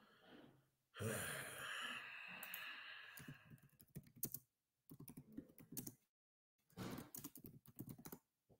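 Typing on a computer keyboard: clusters of quick key clicks in several short runs. Before the typing, a louder rushing, breathy noise lasts a couple of seconds.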